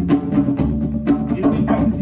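Live band music: a drum kit keeps a steady beat of about four hits a second under sustained pitched instruments.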